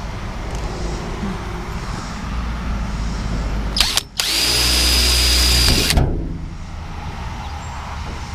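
A power drill driving a small screw: one loud steady whine of about two seconds starting about four seconds in, just after a sharp click. A steady low hum runs underneath before it.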